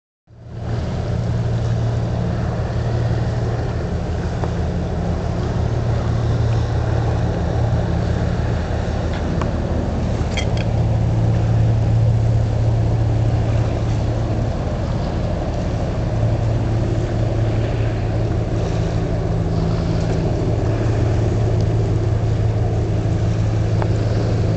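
A vessel's engine running with a steady low drone, with a brief faint high chirp about ten seconds in.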